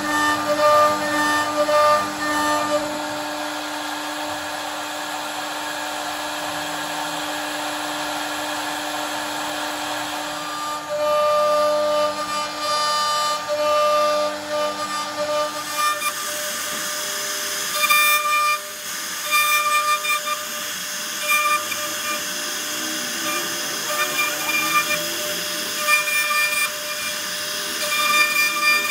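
CNC router spindle running with a steady whine as its bit cuts wood, over a rough cutting noise. About halfway through, the sound changes abruptly and the whine starts coming and going.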